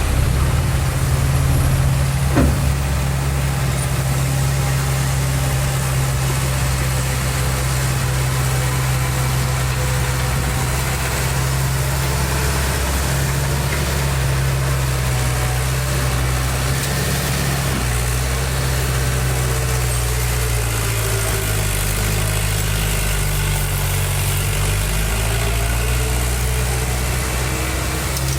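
Diesel engine of heavy construction machinery running steadily, with a single knock about two seconds in and a slight drop in engine pitch about two-thirds of the way through.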